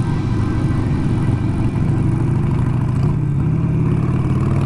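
Harley-Davidson V-twin motorcycle engine running steadily under way, heard from the rider's own seat, a continuous low rumble with wind and road noise over it.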